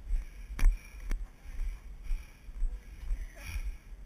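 Walking on a dirt trail heard through a body-worn GoPro: a few sharp knocks of the camera jolting with the steps, over a low, pulsing rumble of movement and wind on the microphone.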